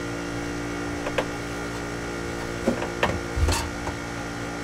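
A few short metal knocks and clunks as a rebuilt generator armature is handled into place against the engine's flywheel, the last around three and a half seconds in the loudest, over a steady hum.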